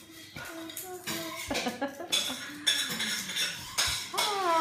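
Pieces of dry lasagna pasta clattering and clinking against a ceramic bowl as they are handled, a quick run of small sharp clicks.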